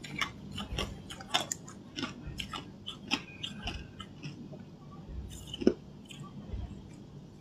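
Hard ice being bitten and chewed: a quick run of sharp cracking crunches in the first few seconds, thinning out later, with one louder crunch near the end.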